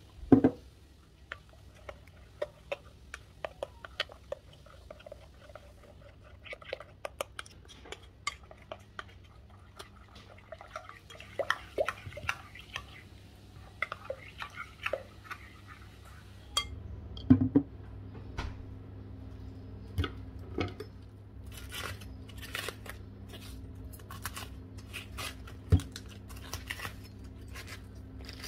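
Batter being mixed in a glass mixing bowl, with a string of light clicks and scrapes of a utensil against the glass and a loud knock right at the start as water is poured in. In the last several seconds a knife cuts cabbage on a wooden cutting board in a run of sharp strikes, over a low steady hum that comes in past the middle.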